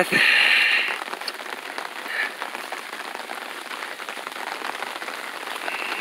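Steady rain pattering, with many small drop ticks throughout. A louder brief hiss comes in the first second, and a fainter one about two seconds in.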